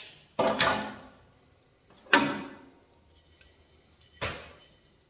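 Sharp metallic clicks and knocks as a small sheet-metal offcut and tin snips are handled while a cleat is made from the scrap: a quick pair near the start, then single knocks about two and about four seconds in, each dying away within half a second.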